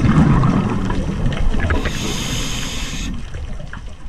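Scuba diver's breathing heard underwater: a rumbling burst of exhaled bubbles at the start, then a steady hiss of inhalation through the regulator from about two seconds in, cutting off abruptly a second later.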